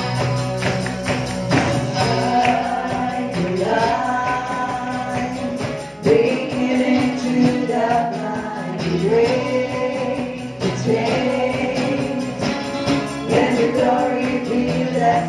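Live praise and worship band: several singers on microphones over acoustic guitar and a drum kit, with the voices coming in about two seconds in.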